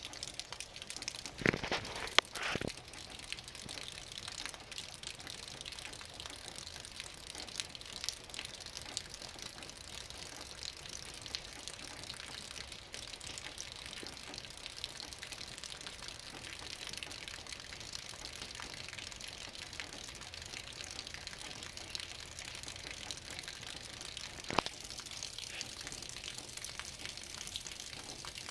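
Steady rain falling, an even hiss sprinkled with the ticks of single drops. A few louder sharp taps stand out: three about two seconds in and one near the end.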